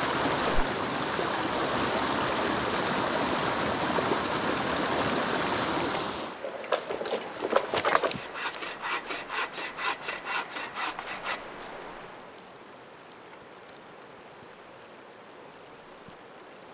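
Loud, steady rush of river rapids over rocks. About six seconds in it changes to a hand saw cutting dead wood, several quick strokes a second for about five seconds. It ends with a faint, even patter of rain falling on the water.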